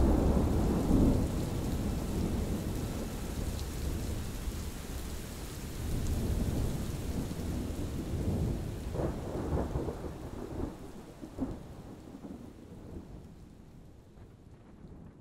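Thunderstorm: steady rain with thunder rumbling, swelling louder about nine to ten seconds in, then the whole fading out near the end.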